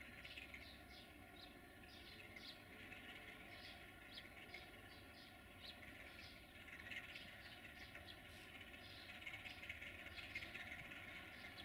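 Small birds chirping many times over the faint, steady sound of a Romanian 060-DA (LDE2100) diesel-electric locomotive slowly approaching with a freight train.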